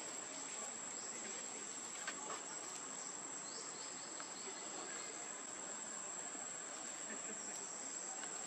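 Steady, high-pitched drone of insects, with a few faint ticks over it, one about two seconds in.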